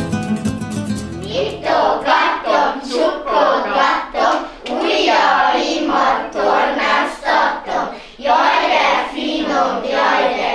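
A class of young children singing in unison with a woman teacher leading, in short rhythmic phrases. Acoustic guitar music fades out under the first moments.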